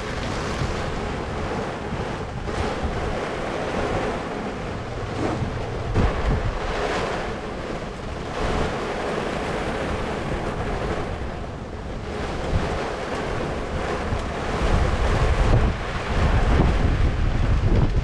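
Steady rain and wind, with wind buffeting the microphone and gusting harder near the end.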